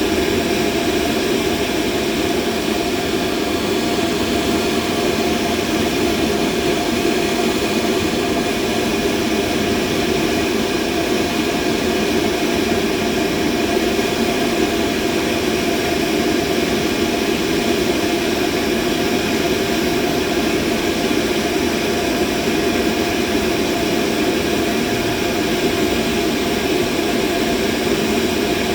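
Steady, unchanging machine hum: a dense, even rushing noise with a few faint steady tones above it, with no starts, stops or changes in speed.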